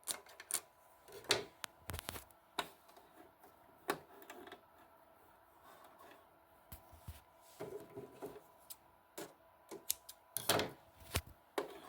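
Scattered, irregular clicks and light rattles from a serger's parts and threads being handled while it is unthreaded by hand.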